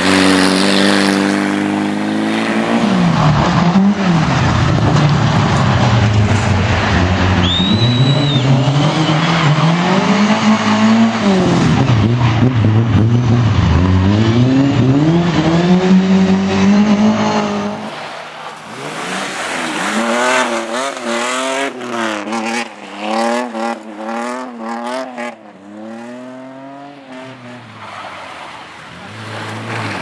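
Rally car engines revving hard on a dirt course: for the first half a loud close car climbs and drops in pitch again and again as the driver lifts and accelerates through corners, with a brief tyre squeal about eight seconds in. After about eighteen seconds it is quieter, a car revving up and down more quickly further off.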